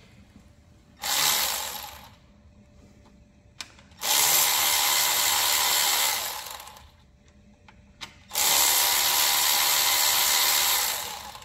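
Power tool run in three bursts, a short one about a second in and then two of about three seconds each, each trailing off as it spools down: undoing the bolts of a timing chain guide.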